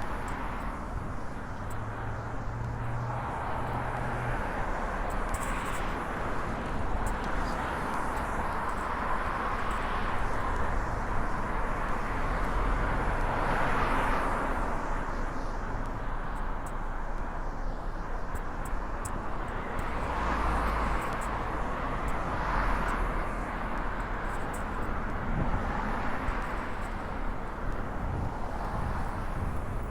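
Street traffic passing on wet roads: a steady hiss of tyres that swells and fades several times as vehicles go by, loudest about halfway through.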